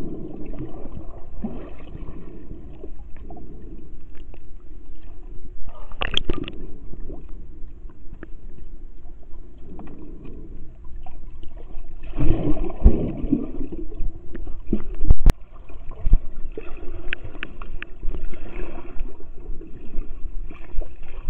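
Muffled underwater sound of a swimming pool, picked up by a submerged camera: water churning and bubbling as a swimmer kicks past, with louder surges about six and twelve seconds in and a single sharp knock a little after fifteen seconds.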